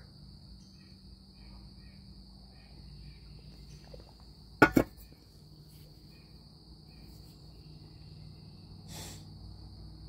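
Steady high-pitched insect chorus, crickets, under faint outdoor background noise, with a sharp double click about halfway through and a softer rustle near the end.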